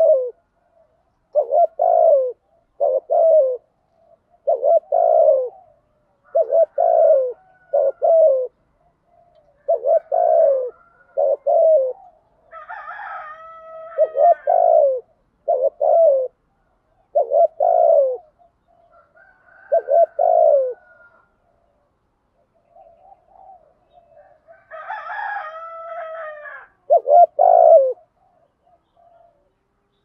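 Spotted dove cooing: short, low coo notes repeated every second or two, broken twice by a longer, rougher call with higher overtones, about halfway through and again near the end.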